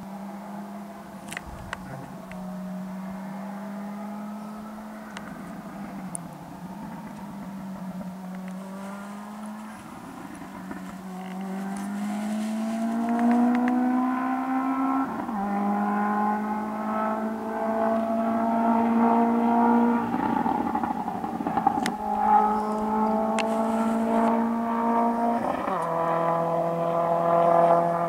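Distant 2002 Subaru Impreza Type R, a turbocharged flat-four with anti-lag and a de-catted straight-through exhaust, accelerating hard through the gears. The engine note climbs and drops with each of about three gear changes and grows louder as the car comes closer, with a few sharp anti-lag pops and bangs.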